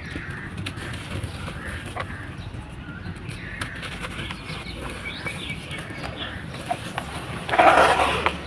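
Dry sand-cement ball being crumbled in a tub: a few faint crackles, then one loud crunch about seven and a half seconds in.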